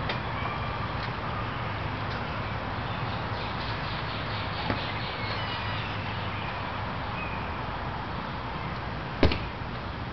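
Steady outdoor background noise with a low rumble and faint high chirping. There is a small click about halfway through and a louder, sharp click near the end.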